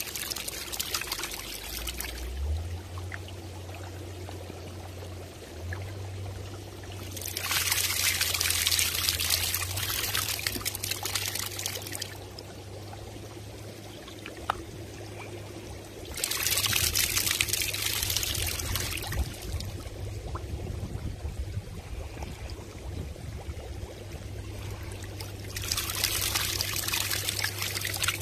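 Water splashing and pouring in a goldfish holding tank, swelling into louder spells of a few seconds four times, over a steady low hum.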